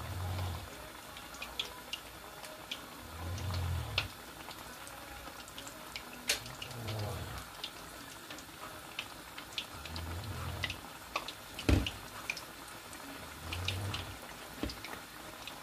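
Battered fish pieces deep-frying in hot oil, a steady sizzle with many small crackles and pops. A soft low thump comes about every three and a half seconds, and there is one sharp knock about two-thirds of the way through.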